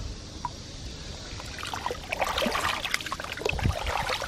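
Gloved hand squelching and sloshing through wet tidal mud and puddle water while digging out a mud shrimp burrow. Fairly quiet for the first second and a half, then a dense run of wet crackles and squelches.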